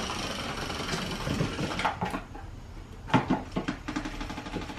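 Clockwork motor of a Rat Race wind-up toy rat whirring steadily as it runs across a hardwood floor. A few sharp knocks come about three seconds in.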